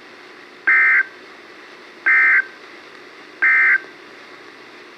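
Emergency Alert System end-of-message data bursts on NOAA Weather Radio: three short, identical buzzing squawks about 1.4 s apart, over steady radio hiss. They mark the end of the warning broadcast.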